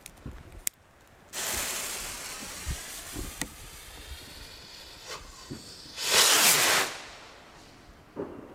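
Funke Saturn firework rocket launching from a rocket stand: a few clicks, then a sudden loud hiss about a second in as the motor ignites, fading slowly as it climbs. About six seconds in, a louder rushing hiss lasts roughly a second.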